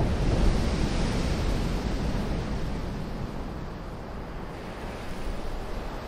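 Ocean waves breaking on a gravel beach. A wave crashes in the first second and its wash fades over the next few seconds, and the next swell starts to build near the end.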